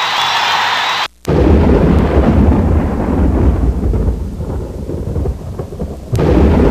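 A loud, deep rumble that cuts in abruptly after a brief drop-out about a second in, eases off somewhat, then breaks off near the end.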